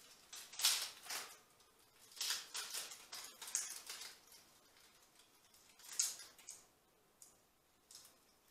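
Sprigs of fresh ivy rustling and crackling as they are handled and tucked into a garland, in short bursts with pauses between.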